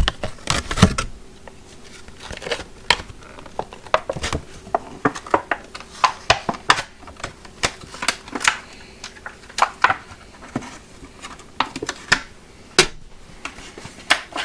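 Irregular sharp clicks and plastic crinkling as ratcheting screwdriver parts and their blister packaging are handled and unpacked.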